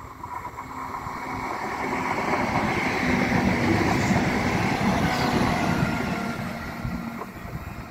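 A Slovenian Railways Siemens Desiro electric multiple unit passing on the tracks, with wheel and rail rumble and a faint motor whine. It grows louder to a peak in the middle and then fades as the train moves away.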